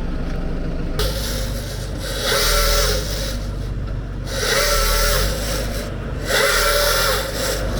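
Large tree-removal machine running, its engine stepping up about a second in, then working in repeated surges every second or two with a whine over a noisy hiss.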